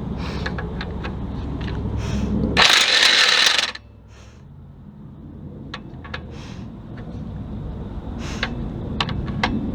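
Power tool working on engine hardware, running in a loud burst about a second long, with sharp metal clicks and knocks before and after it.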